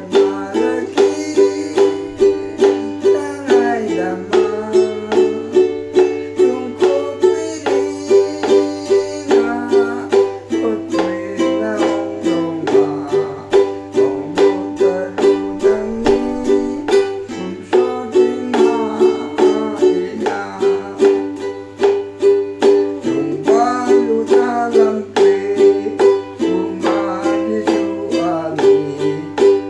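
Ukulele strummed in an even rhythm of about two strokes a second, with a man's voice singing over it.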